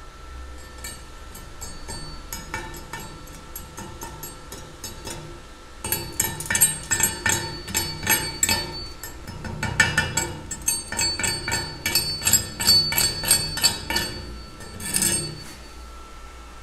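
Chipping hammer knocking slag off a freshly laid stick-electrode weld bead on steel: rapid, sharp metal-on-metal strikes, several a second, starting about six seconds in and going on for around eight seconds, with a last short flurry near the end. Before that there are only faint scattered ticks.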